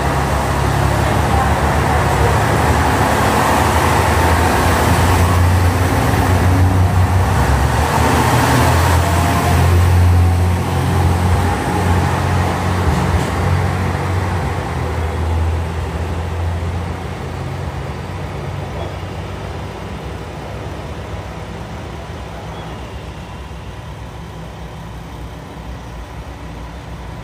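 KiHa 187 series diesel railcar train pulling out along the platform, its diesel engines working hard under acceleration with a deep drone. The sound is loudest over the first ten seconds or so, then fades steadily as the train draws away.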